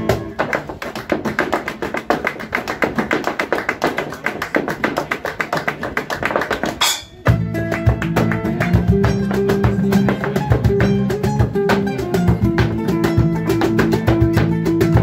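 Flamenco footwork: hard shoes stamping fast rhythms on a wooden board, with little else under it. About halfway through, after a short break, bass and guitar come back in with the stamping.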